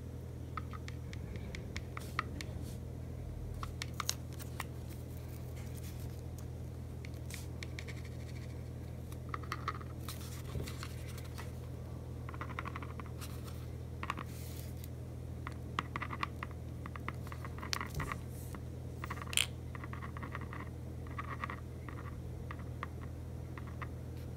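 Scattered light clicks and short scratching sounds as a wax floor-repair crayon is melted against a hot glue gun's metal nozzle and the nozzle is worked into a dent in the wooden floor, over a steady low hum.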